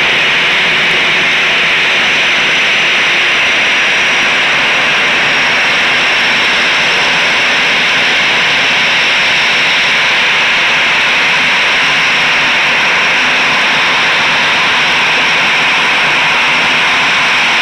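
Jet engines of a twinjet airliner taxiing at low thrust in a heavy rain shower: a steady wash of rain and engine noise with a thin high engine whine held above it.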